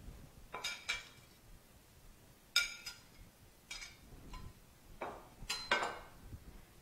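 Kitchen utensils and dishes clinking and knocking during food preparation: a string of irregular sharp clinks, a few of them ringing briefly.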